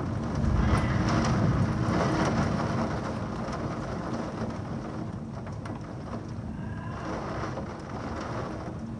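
Heavy rain and wind in a thunderstorm, with a long rumble of thunder in the first few seconds that slowly fades.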